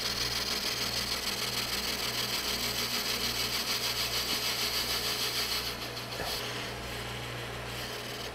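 Metal lathe boring cast iron with a carbide-insert boring bar: a steady scraping hiss of the cut, pulsing regularly, over the low hum of the running lathe. About six seconds in the cutting noise stops and the lathe runs on alone.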